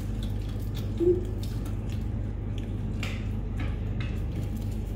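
Eating sounds at a table: scattered small clicks, taps and rustles of hands, food and plates over a steady low hum in the room.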